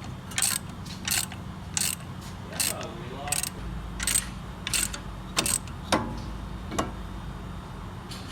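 Ratcheting brake caliper piston compressor tool clicking in even strokes, about three clicks every two seconds, as it pushes the front caliper's two pistons back into their bores. The clicks slow to a few spaced ones and stop near the end as the pistons reach flush.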